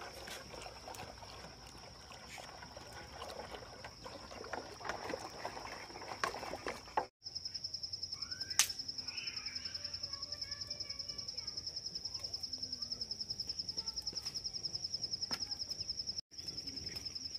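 An insect trills steadily throughout in one high, fast-pulsing tone. Light knocks and scrapes come through during roughly the first seven seconds. The sound cuts out completely for an instant twice.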